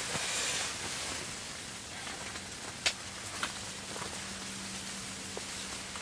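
Steady hiss of wind-driven snow pelting an ice-fishing shelter, under a faint steady hum, with a sharp click just before three seconds in and a couple of lighter ticks after it.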